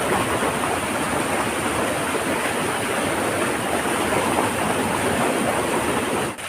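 Steady rush of water from a waterfall, an even roar of falling and running water that drops away suddenly near the end.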